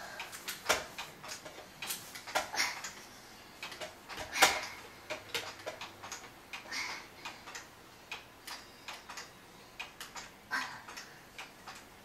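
Irregular plastic clicks and knocks from a baby swing's frame, seat and top housing as a toddler climbs and stands in it and handles it, with one louder knock about four and a half seconds in.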